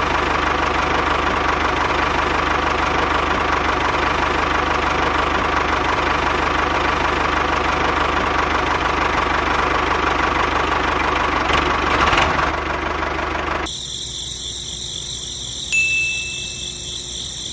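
Tractor engine running steadily with an even chugging, swelling a little about twelve seconds in, then cutting off abruptly about fourteen seconds in and leaving a quieter steady hum.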